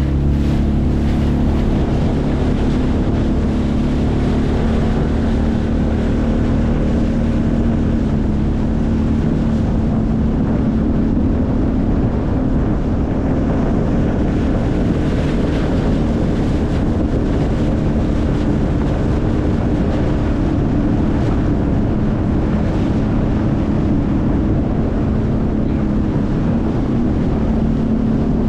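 Sea-Doo jet-ski engine running at a steady cruising speed, with water rushing and wind buffeting the microphone.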